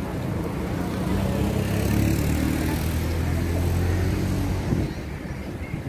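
A steady low engine drone that grows louder, then falls away sharply near the end.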